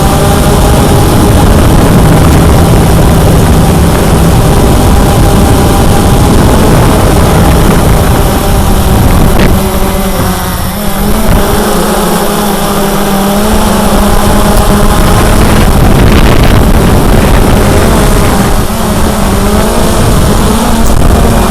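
Cheerson CX-20 quadcopter's brushless motors and propellers running in flight: a loud, steady hum with a rush of air, and the motor tones shift in pitch about halfway through as the drone changes its throttle.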